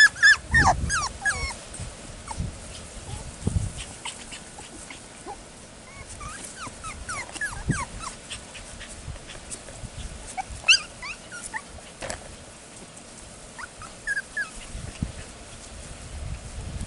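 Six-week-old F1 cockapoo puppies whimpering and yipping in short, scattered high squeaks while they play, with a few soft low thumps.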